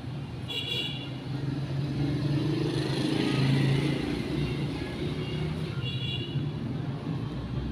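A motor vehicle's engine running close by, swelling to its loudest about halfway through and then easing off. Two brief high-pitched chirps come, one near the start and one near the end.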